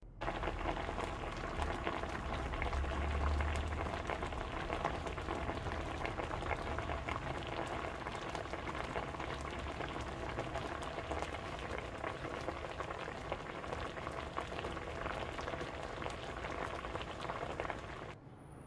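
Steady crackling sizzle of food frying in oil, cutting off abruptly near the end.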